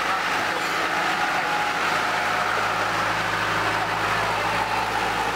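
Truck engine idling, a steady low hum.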